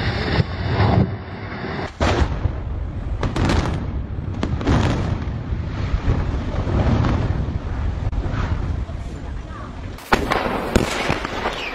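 Explosive demolition of concrete structures (a silo, cooling towers, a tall chimney): sharp blasts from the charges, several of them a few seconds apart, over the heavy rumble of concrete collapsing, with abrupt changes where clips are cut together.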